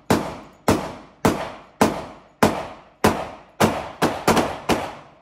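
Gunshots: a firearm fired about ten times in steady succession, roughly two shots a second, the last few coming a little faster, each shot followed by a short echo.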